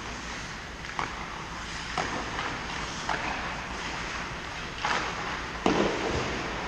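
Echoing arena ambience of an indoor ice hockey game: a steady background hiss with scattered sharp clacks of sticks and puck, the loudest and most echoing one near the end.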